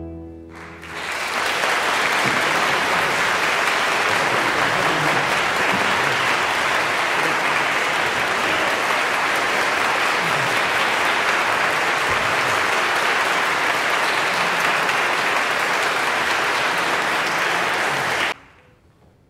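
The last chord of a string orchestra dies away, then a concert audience applauds steadily; the applause cuts off suddenly near the end.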